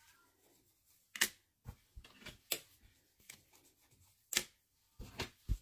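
Scattered small, sharp clicks and taps, about ten over five seconds, from manicure items being handled while a gel-polish swatch tip is wiped and degreased.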